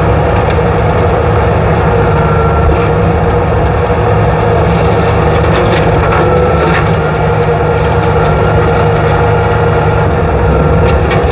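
Skid steer running with a rotary brush cutter: a loud, steady engine drone with a steady hum over it and scattered light ticks.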